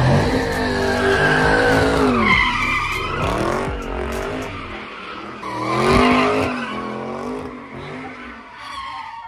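A car's engine revving hard, rising and falling in pitch several times, with tires squealing as it spins donuts. It is loudest right at the start and again about six seconds in, then fades near the end.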